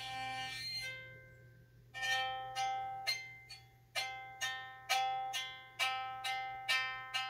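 Single-string Stroviols (circa 1910), its string driving a diaphragm and metal gramophone-style horn, sounding the note C. A held note fades out about a second in. After a short pause come about ten plucked notes on the same C, roughly two a second, each ringing and fading.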